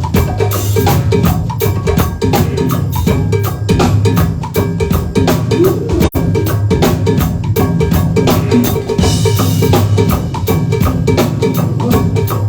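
A band playing music with a steady drum-kit beat, the bass drum and snare prominent over a sustained bass line. The sound drops out for a split second about halfway through.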